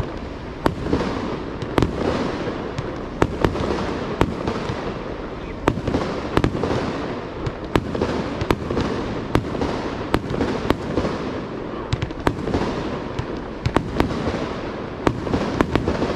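Aerial fireworks shells bursting in rapid succession, several sharp bangs a second over a continuous rumble and crackle, with booms echoing between them.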